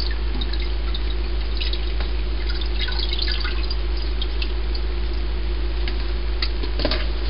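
Strained corn mash liquid dripping and trickling through a cheesecloth-lined strainer as the wet cloth is handled. There are scattered drips and wet splashes, a busier patch about three seconds in and another near the end, over a steady low hum.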